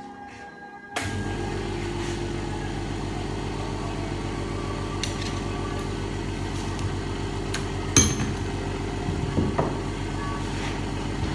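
A machine starts about a second in and runs steadily with a low hum. Sharp metallic knocks come in near the end.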